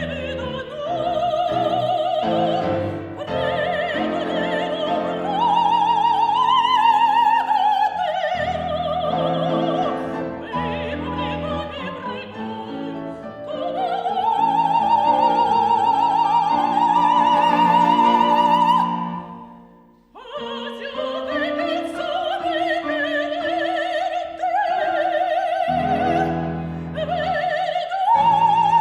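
Soprano singing a zarzuela song with piano accompaniment, holding long high notes with wide vibrato. About two-thirds of the way through the music breaks off for a moment, then voice and piano resume.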